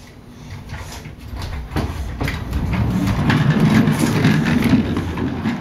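A child's kick scooter with small plastic wheels rolling on a hardwood floor: a rattling rumble that grows louder from about two seconds in as it comes closer, loudest around four seconds.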